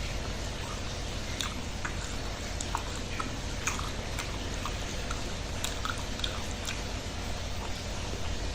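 A person chewing and biting food close to the microphone, with scattered small wet clicks and smacks of the mouth.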